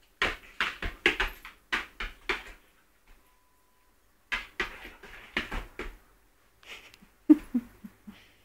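Quick clicks and knocks in three bursts from a small poodle pouncing on and snapping at a dead bumblebee, with a few short low sounds in the last burst.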